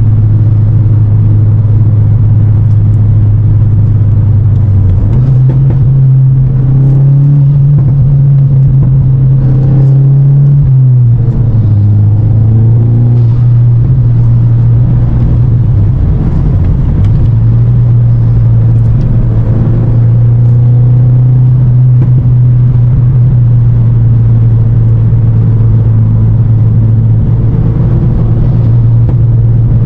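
The 2023 VW MK8 GTI's 2.0-litre turbocharged four-cylinder, heard from inside the cabin while driving: a steady low engine drone over road rumble. Its pitch steps up about five seconds in, drops back around eleven seconds, then rises and falls once more past the middle.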